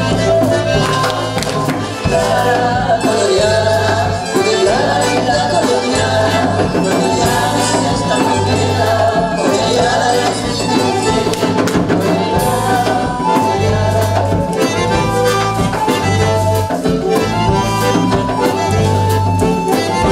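A small live band of accordions, electric bass guitar and saxophone playing a cumbia dance tune, the bass pulsing a steady repeated figure under the accordion melody.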